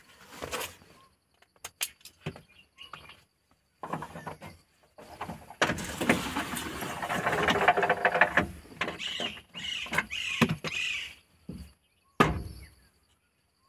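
A new plastic door trim panel on a Maruti 800 door being worked into place by hand: a few sharp clicks at first, then a long stretch of plastic rubbing, scraping and squeaking against the door, and a single knock near the end as it is pressed home.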